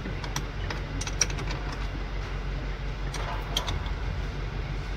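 Light metallic clicks and clinks from a car battery cable terminal and hand tools being handled, over a steady low hum.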